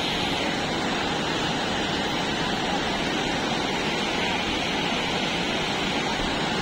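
Water spilling over a low stepped weir below a dam: a steady, even rush.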